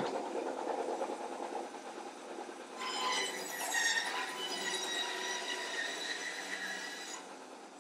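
Band saw cutting a thick oak tabletop along a curve: a rough, noisy cut at first, then from about three seconds in the blade squeals on a high pitch until it cuts off suddenly a little before the end.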